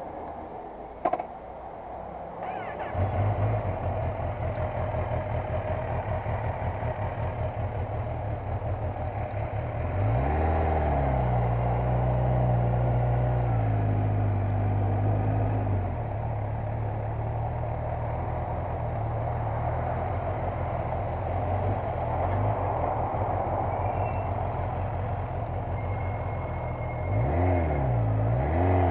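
Motorcycle engine heard from the bike itself, getting much louder about three seconds in as it pulls away. Its revs rise and fall with gear changes around ten seconds in and again near the end, with a steady run between.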